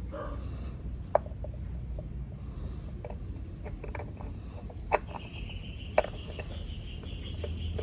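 Hand work on a motorcycle's new oil filter as it is threaded on, with light rubbing and three sharp metallic clicks, and a steady high thin whine joining about five seconds in.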